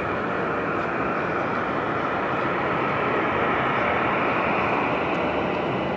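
Jet engine noise from a Boeing 777-300ER on its landing, its GE90 turbofans giving a steady rushing sound that swells slightly about halfway through.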